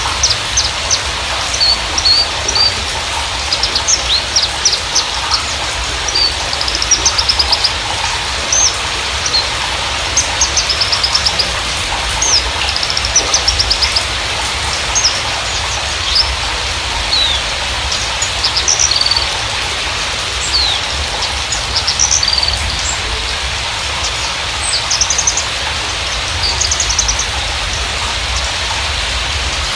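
Javan bushlark (Mirafra javanica parva) singing: a run of short high chirps and quick rattling trills with brief gaps, over a steady hiss and a low hum.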